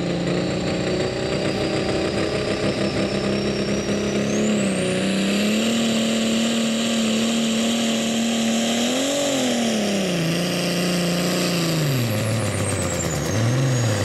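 Turbocharged diesel pickup engine under full load pulling a sled. The revs climb about a third of the way in and a high turbo whistle rises with them. Both hold, then drop away near the end as the revs fall.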